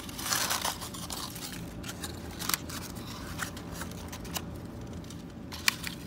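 Folded paper pinwheel and curled paper straws rustling and crinkling as hands work them, with a few light clicks spaced through.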